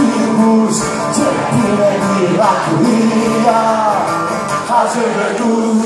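Live band playing: drum kit with cymbals, double bass and guitars, with an ornamented melody line of bending notes over the top.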